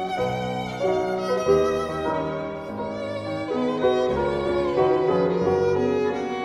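Background instrumental music: a melody played with vibrato on a bowed string instrument such as a violin, over accompaniment, with notes changing about every half second.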